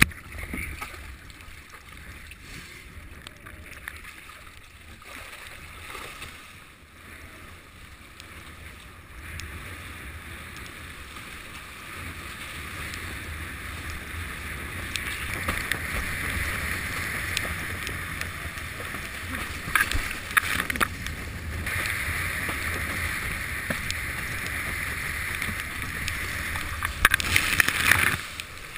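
Water rushing and splashing under a sailing windsurf board, with wind, heard through a GoPro camera's waterproof housing on the boom. It grows louder about ten seconds in as the board gets going, with bursts of sharp slaps and spray hitting the housing near the end.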